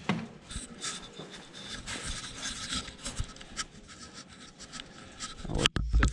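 Rubbing and light scraping by hand, with scattered small clicks, as a shop towel and tools are handled around the engine. Two or three heavy thumps come near the end.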